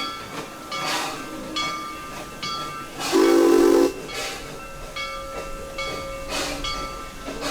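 Theme-park train going by, with repeated hissing and a blast on its whistle lasting just under a second about three seconds in.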